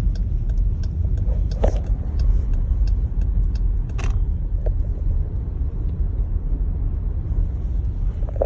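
Steady low rumble of a 2019 Jeep Grand Cherokee driving through snow, heard from inside the cabin, with scattered light ticks.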